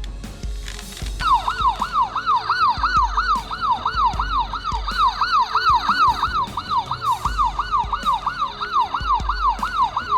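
Electronic sound effect of a battery-powered toy gun with sound and light: a high electronic tone that falls in pitch and repeats about three times a second, starting about a second in, siren-like.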